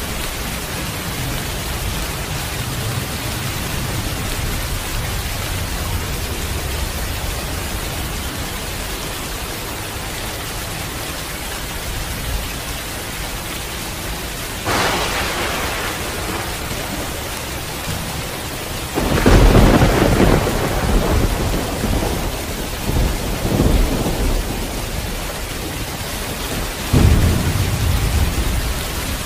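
Heavy rain falling steadily, with thunder: a sudden clap about halfway through, a long, loud, deep rumble from about two-thirds in, and another sudden clap near the end.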